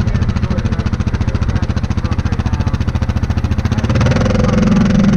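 2018 Yamaha Grizzly 700 ATV's single-cylinder four-stroke engine running at low speed with an even, rapid pulse, then throttled up and louder about four seconds in as the quad pulls onto the road.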